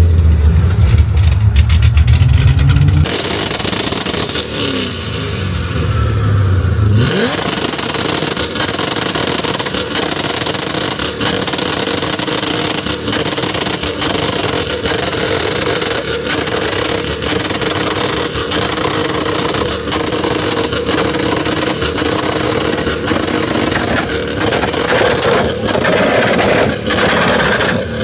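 A car engine revving loudly with a deep exhaust rumble for the first three seconds and again briefly around five to seven seconds in. After that comes a steadier engine drone with a held tone and frequent sharp ticks.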